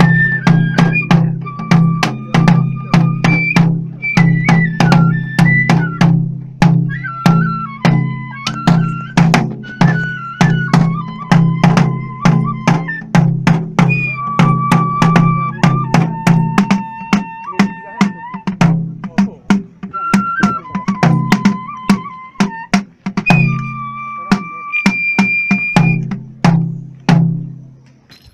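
Shinto kagura music: a barrel taiko drum struck with sticks in a steady beat of about three strokes a second, under a Japanese transverse bamboo flute (fue) playing a melody of long held notes with slides and steps between them.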